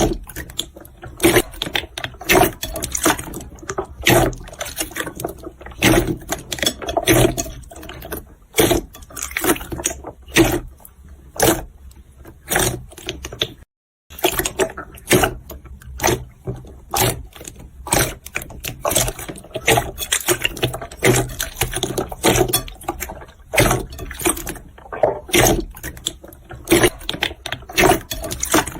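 Jiggly slime being squished and worked by hand, making irregular wet clicks, pops and squelches, with a brief dropout about halfway through.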